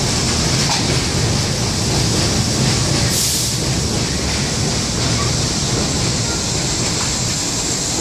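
R68 subway train rolling along the platform: a steady rumble of wheels on rail with a constant hiss, and a short, sharper hiss about three seconds in.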